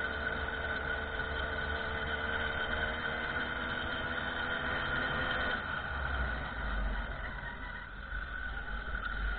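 Small moped engine running steadily under way, with wind rumbling on the microphone. About halfway through, the engine note fades and the wind rumble gets stronger.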